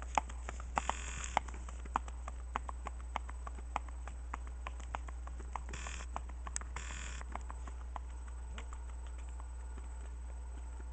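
Hoofbeats of a gaited bay mare on a paved road: an even clip-clop that grows fainter as she moves off and dies away after about eight seconds.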